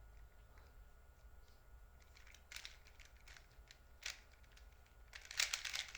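Plastic Rubik's cube being turned by hand: a few scattered faint clicks, then a fast run of clicking turns starting about five seconds in.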